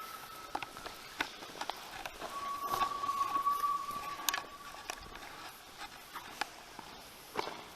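Footsteps and splashes through shallow water in a brick railway tunnel, with scattered sharp drips and knocks. A steady high whistle-like tone is held for about three seconds in the first half.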